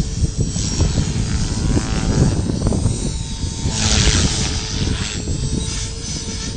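Radio-controlled T-Rex Pro helicopter flying, its rotor and motor giving a faint steady whine, under heavy wind rumble on the microphone. About four seconds in a louder rush of hiss swells and fades.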